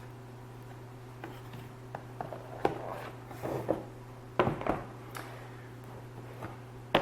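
Handling noise of knives and their packaging: scattered clicks, taps and short rustles as they are set down and picked up, over a steady low hum.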